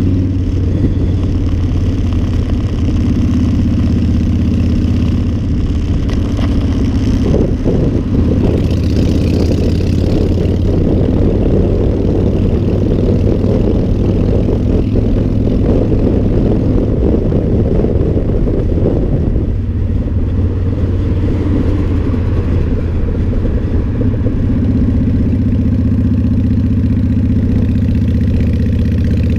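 A cruiser motorcycle's engine running steadily at road speed, with wind noise rushing over the microphone.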